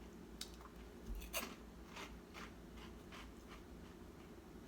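A person faintly chewing crunchy corn-puff cheese balls, a few soft, irregular crunches.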